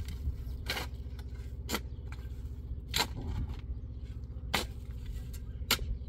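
Steel spade blade driven into stony soil while digging a planting hole, about six sharp scraping strikes roughly a second apart, over a steady low rumble.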